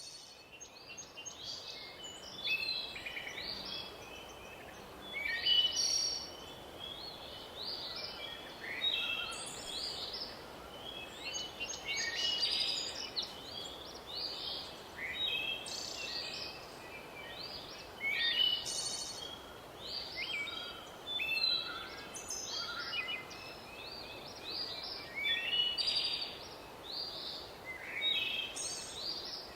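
A chorus of several songbirds singing, short chirping and warbling phrases overlapping one another without a break, over a faint steady background hiss.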